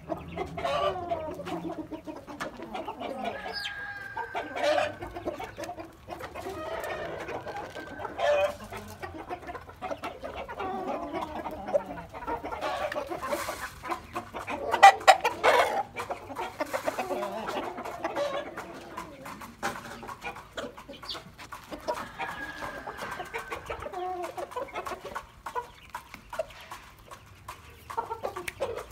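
Aseel roosters clucking and calling, with a rooster crowing, over many short clicks. There is a louder stretch about halfway through.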